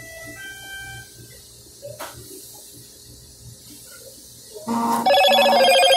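A short electronic tune of held notes plays and stops after about a second and a half. Near the end a much louder electronic ringing tone cuts in.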